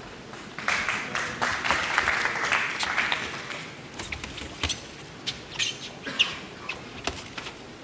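Boxing arena crowd rising in a cheer for about three seconds, then scattered short sharp knocks and brief squeaks.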